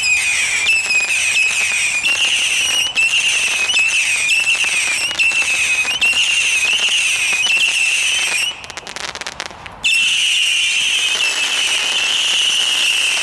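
Firework barrage firing whistling shots in quick succession, each a shrill whistle that overlaps the next, about one to one and a half shots a second. About two-thirds of the way in the whistles stop for roughly a second of quieter rapid crackling, then resume.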